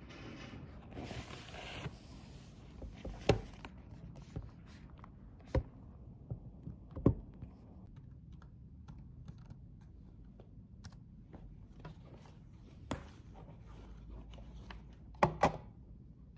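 Light knocks and clicks of small objects being handled and set down on a hard surface, a few of them sharp, with a close pair near the end and a brief rustle about a second in.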